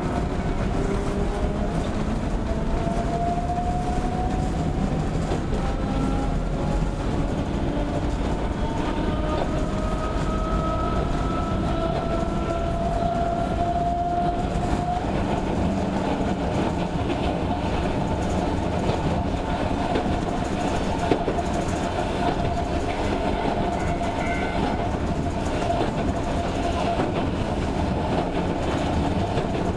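Sangi Railway Hokusei Line 270 series narrow-gauge electric train running, its motor whine rising in pitch as it picks up speed for about the first half, then holding steady, over the clatter of wheels on the rails.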